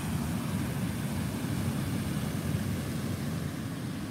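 Water spilling over a dam weir and crashing into the river below: a steady rushing sound, heaviest in the low end.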